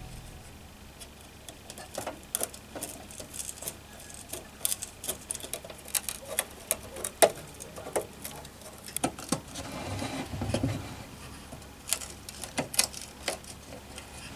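Irregular light clicks and taps of an old Meva lantern's metal parts being handled, with a short low rumble about ten seconds in.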